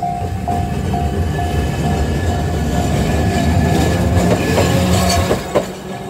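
Japanese level-crossing warning bell dinging about two and a half times a second while a Kagoshima City tram passes close by, its wheels rumbling and clattering on the rails. The rumble grows louder, then ends about five seconds in, followed by a single sharp clack.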